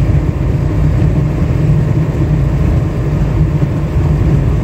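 Steady low rumble of road and engine noise inside the cab of an ambulance-conversion camper truck cruising on the highway.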